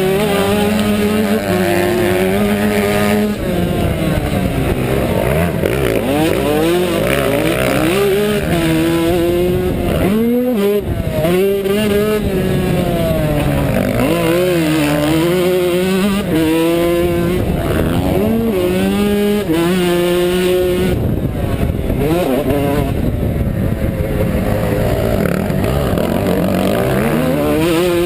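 Yamaha YZ125 two-stroke motocross bike under race load, its engine revving up and dropping back again and again through the gears and corners, with a short throttle-off about ten seconds in.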